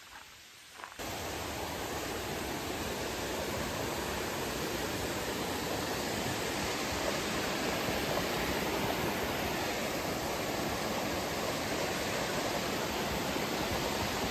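Steady rushing of fast-flowing water, cutting in suddenly about a second in and holding at an even level.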